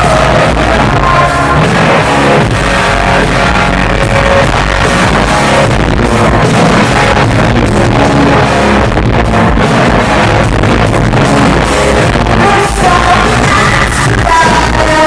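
Loud rock music with a sung vocal line over a full band.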